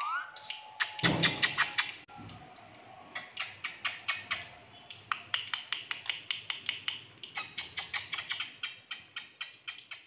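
Indian ringneck parakeet pecking and working its beak at the cage: runs of sharp clicks and taps, about five a second, in several bursts with short lulls between them. A brief rising chirp comes at the very start.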